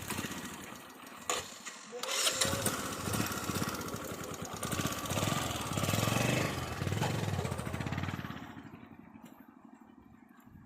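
A vehicle engine running, growing louder about two seconds in and then fading away after about eight seconds.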